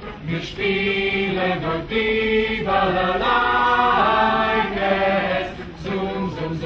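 A choir singing a slow, chant-like melody in long held notes, changing pitch every second or so and dropping away near the end.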